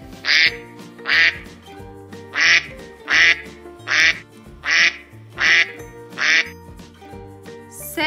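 A duck quacking about eight times, a loud quack every second or less, with a short pause after the second one, over light background music.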